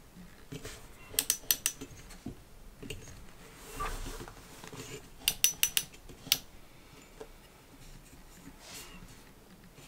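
A folding metal laptop stand being adjusted by hand: two quick runs of about four sharp clicks from its hinge joints, a few seconds apart, with a brief rubbing sound between them and a single click after the second run.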